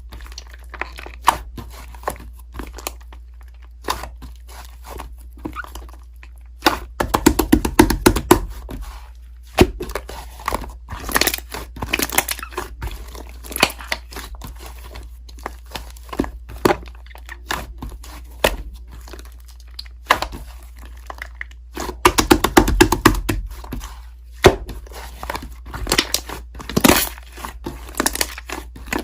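Slime being squeezed and pressed by hand, a run of sticky crackling and crunching clicks, with two denser bursts of crackling about seven seconds in and about twenty-two seconds in.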